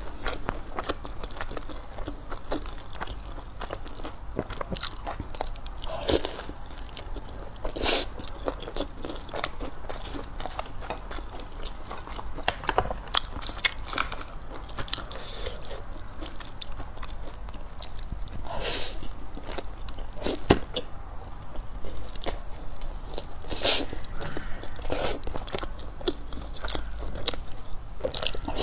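A person biting and chewing food close to the microphone, with many crisp crunches and small clicks. The strongest bites come about 8, 19 and 24 seconds in.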